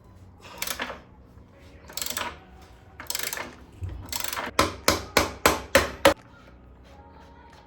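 Workshop tool work on a motorcycle: several short scraping or rasping noises, then a run of five quick, sharp knocks like hammer blows on metal.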